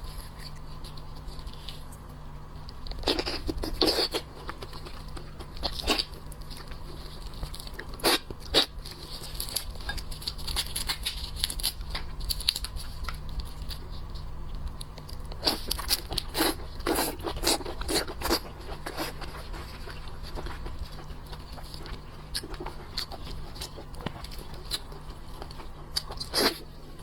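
Shellfish shell being cracked and torn apart by hand, in irregular clusters of crackling and crunching, over a steady low hum.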